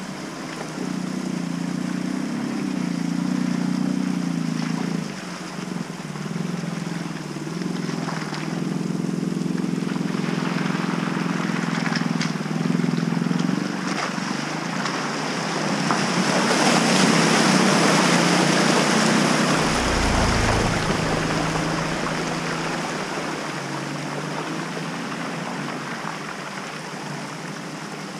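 Jeep Cherokee Trailhawk SUV engines running as they crawl through a flooded, muddy trail rut. The water splashing is loudest a little past the middle, with a brief low rumble just after, and a second engine is heard coming on near the end.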